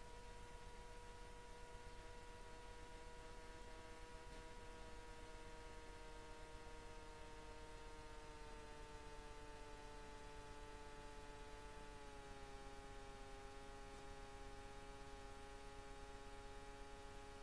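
Near silence with a faint, steady droning tone that slowly slides lower in pitch about halfway through, dropping a little further about two-thirds of the way in.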